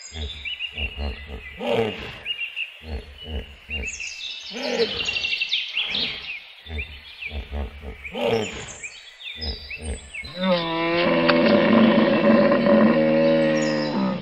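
Hippopotamus calling: a run of deep, pulsing grunts and honks, then one long, loud bellow from about ten seconds in. Birds chirp faintly behind it.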